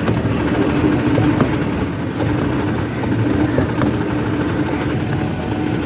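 Honda City's engine idling with an uneven, rough beat under a steady hum: it is misfiring and won't take revs.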